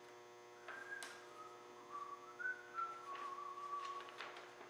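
A person whistling a short tune of a few held notes, starting under a second in and stopping near the end, with a few light knocks of parts being handled.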